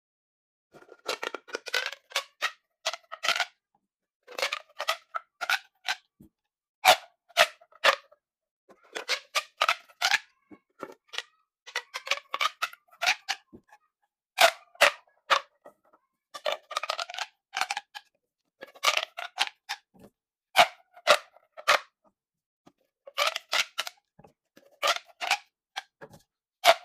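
Plastic pop tubes being stretched and squeezed, giving quick runs of sharp pops and clicks with a ringing pitch. The runs come in clusters every second or two, with short silences between.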